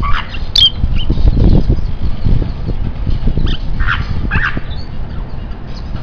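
Caged rosy-faced lovebirds giving short, shrill squawks, one very sharp call about half a second in and a cluster of calls around four seconds in. Underneath runs a loud low rumble.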